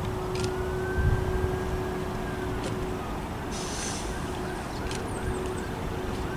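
Double-deck bus drawing slowly to a halt: a steady engine hum with a motor whine that glides up and falls away, a short hiss of air about three and a half seconds in, then a repeating chirping beep, about two to three a second.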